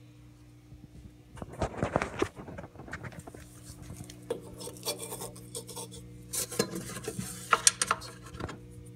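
Handling noise from a phone being moved and rubbed against a hand or fabric close to its microphone: irregular scraping and rubbing with small clicks, over a steady low electrical hum.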